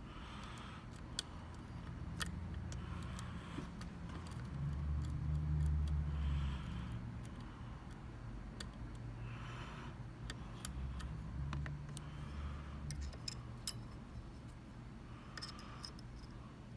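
Small metallic clicks and scrapes of a lock pick and tension wrench working the pins of a Mul-T-Lock MT5 cylinder, with a low rumble that swells twice.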